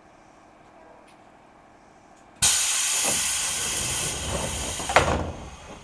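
Pneumatic door gear of a JR 205 series electric train venting compressed air as its sliding doors close. A sudden loud hiss starts about two and a half seconds in and lasts about three seconds, with a thud near the end, then fades.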